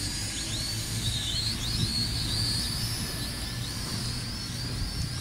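Small toy quadcopter drone's motors and propellers whining in flight, the pitch rising and dipping again and again as the throttle changes while it climbs.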